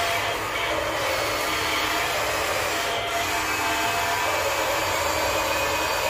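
Steady mechanical whirring noise, even in level throughout, with no distinct knocks or breaks.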